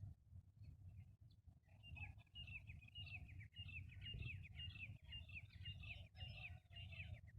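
Faint bird calls: a fast run of short, down-slurred chirps, several a second, starting about two seconds in and lasting some five seconds, over a low steady hum.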